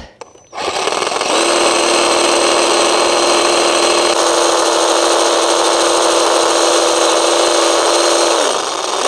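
Cordless reciprocating saw running steadily as its blade cuts through a thick, old climbing-rose cane at the base of the bush. It starts about half a second in.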